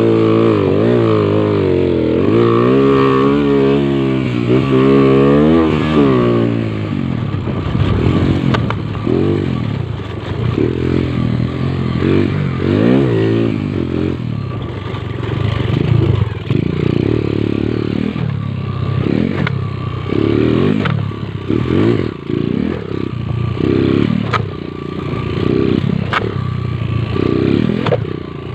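Motorcycle engine under way, holding a wavering steady pitch for about six seconds, then revving up and dropping back about once a second, as when throttling through corners on a track.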